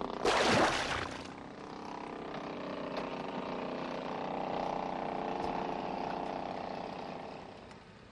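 Petrol chainsaw running, with a loud harsh burst of about a second just after the start, then a steady two-stroke engine note that fades out near the end.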